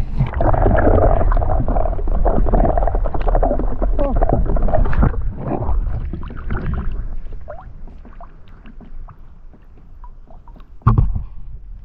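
Water sloshing and gurgling against a camera held at the sea surface, with handling knocks and a low rumble, loudest over the first five seconds. One sharp knock comes about a second before the end.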